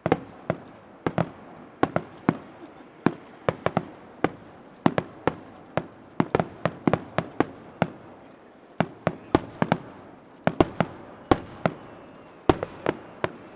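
Aerial fireworks shells bursting in quick, irregular succession, a sharp bang every fraction of a second over a continuous rumble of echoes.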